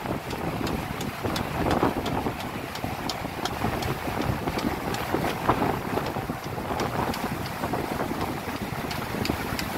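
Water rushing and splashing along the hulls of an Astus 20.5 trimaran under sail, mixed with wind buffeting the microphone. Faint short high ticks are scattered throughout.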